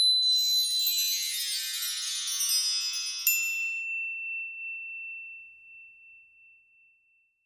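Logo sting of shimmering high chimes, followed about three seconds in by a single bright ping whose tone rings on and slowly fades away.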